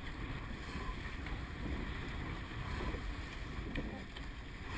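Wind buffeting the microphone over water rushing past a surf boat being rowed, with a few faint knocks.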